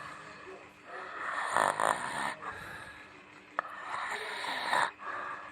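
Someone snoring: two long snores about two and a half seconds apart, with a short sharp click just before the second.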